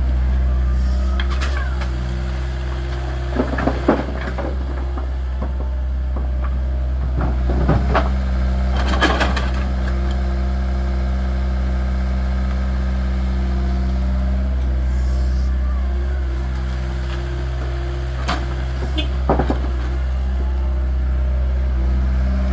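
Mini excavator's diesel engine running steadily while it loads a truck, with short bursts of clanking and scraping from the bucket working, about four seconds in, around eight to nine seconds in, and again near the end.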